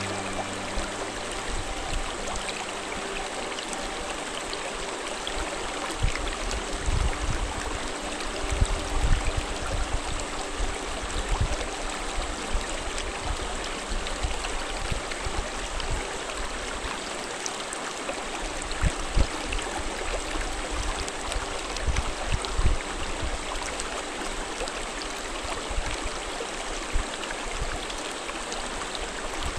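Shallow mountain stream running and splashing over rocks, a steady rush of water with occasional low thumps.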